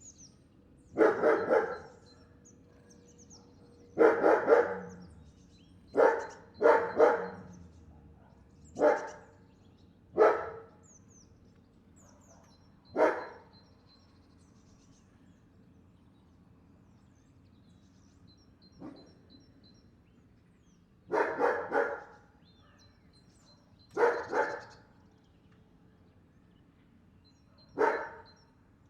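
A dog barking in short bouts of one to three barks, with pauses of a few seconds between bouts; one bark near the middle is much fainter.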